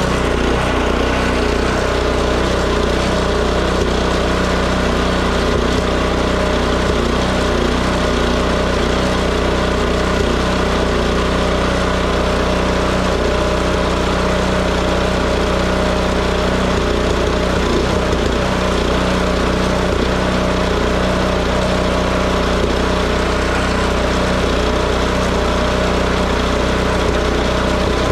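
Toro 721 snowblower's single-cylinder four-stroke engine running steadily at an even speed. It is running again after a carburetor cleaning, an oil change and a new spark plug cured a no-run fault.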